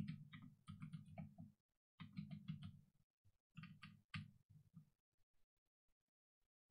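Computer keyboard typing in three short runs of quick, faint keystrokes, one run per word, stopping about five seconds in.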